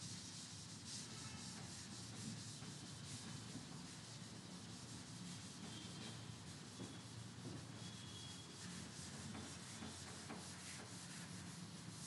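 Hand-held duster rubbing chalk off a chalkboard in many repeated back-and-forth strokes: a faint, steady scrubbing hiss.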